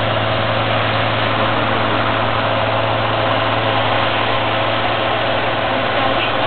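Heavy truck engine idling steadily, a constant low hum.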